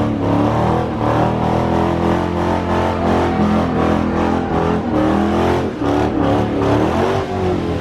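Several car engines running at once, with a steady exhaust drone and some revving.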